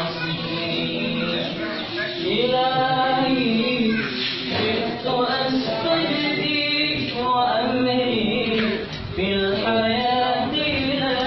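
Unaccompanied voices singing in a chant-like melody, in phrases of long held notes: a male teacher singing the lesson text, with the class's voices mixed in.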